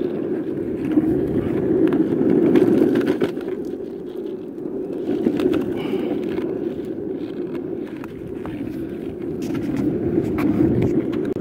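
Wheels of a Y Glider Deluxe three-wheeled kids' kick scooter rolling over cracked asphalt: a steady rough rumble that swells and eases, with scattered sharp clicks and ticks as the wheels cross the cracks.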